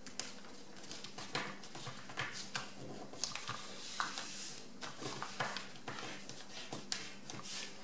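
A sheet of printer paper rustling and crinkling as it is folded and the creases are pressed flat by hand, in many short, irregular crackles.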